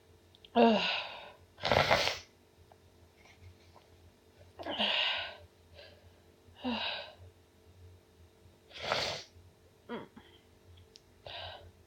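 A woman sneezing again and again, about six sneezes a second or two apart, some with a voiced, falling "choo"; the loudest comes about two seconds in.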